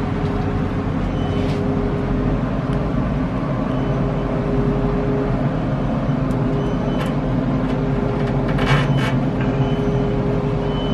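Steady low mechanical hum and rumble of a running pellet smoker's fan, with a few light clicks about two-thirds of the way through.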